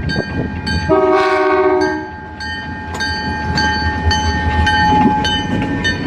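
A diesel freight locomotive's air horn sounds one blast of about a second, about a second in. Around it a level-crossing bell rings at about two strokes a second, over the low rumble of the approaching train.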